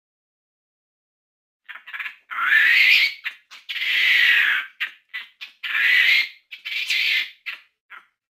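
Capuchin monkey giving a series of harsh, high-pitched growling calls. After a silent start, a few short chirps come about a second and a half in, then several longer calls of about a second each with short ones between.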